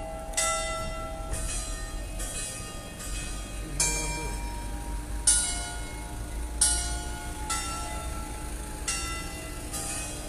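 Church bells hung in an open frame atop a tower ringing, several bells of different pitches struck about once a second in an uneven pattern, each strike ringing on under the next.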